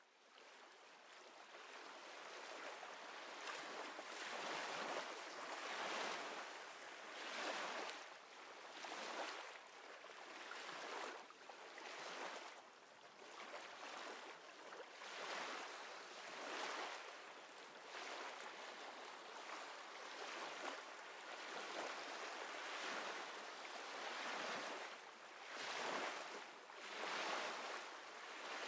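Ocean surf washing in repeated surges, each swell rising and falling about every second and a half, fading in over the first few seconds.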